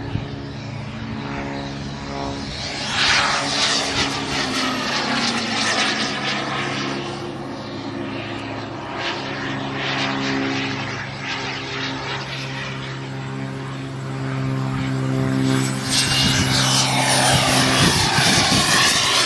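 Radio-controlled model turbine jet making flying passes. Its rushing jet roar swells about three seconds in and again from about sixteen seconds in, with a faint high whine that falls in pitch as it goes by. Under it, a steady low drone of several pitched tones runs on and cuts off near the end.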